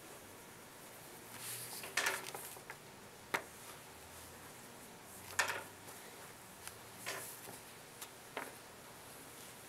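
Scattered light taps and clicks, about seven spread irregularly, with some rustling: crayons and papers being handled on classroom tables while students colour.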